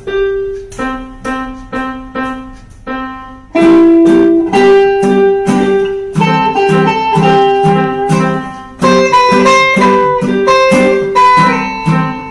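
Guitar music: evenly paced plucked chords, about two a second, that become much louder and fuller about three and a half seconds in, with a higher melody added over them near the end.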